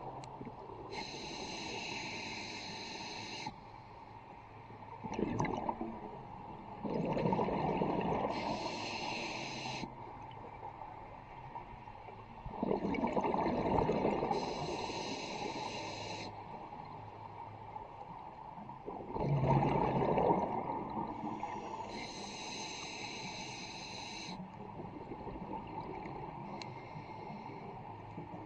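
A scuba diver breathing through a regulator underwater: a hissing inhalation through the demand valve alternating with a rumbling gush of exhaled bubbles. About four breaths, several seconds apart.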